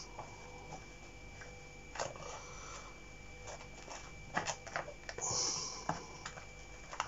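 A knife cutting into a king bolete (porcini) on a plastic cutting mat: scattered light taps and clicks from the blade and handling, and a soft rasp a little after five seconds as the knife goes through the firm flesh and the mushroom is split apart.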